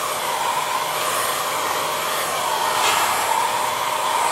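Handheld hair dryer running steadily, blowing warm air over freshly sprayed lacquer on a copper sink to dry it; the whoosh swells and fades a little as it is swept back and forth.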